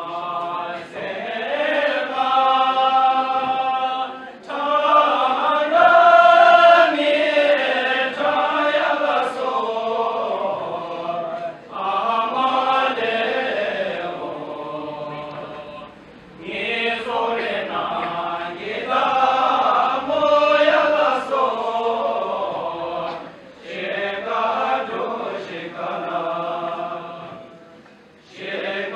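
Group of men singing a Bhutanese dance song together, unaccompanied, in long chanted phrases broken by short pauses for breath.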